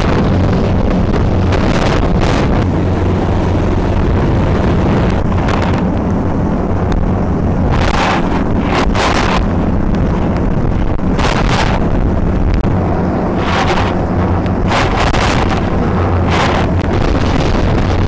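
Gale-force wind buffeting the microphone over the steady drone of a lifeboat's engines, with repeated hissing surges of wind-driven spray and breaking sea.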